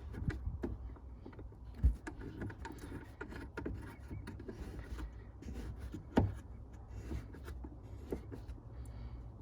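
Hands fitting a BMW E46 taillight and threading on its plastic retaining knobs: scattered small clicks and rattles, with two louder knocks about two seconds in and about six seconds in, over a steady low rumble.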